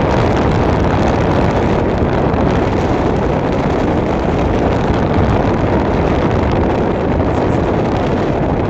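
Steady rush of wind and road noise from a car driving at speed, with wind buffeting the microphone by the side window.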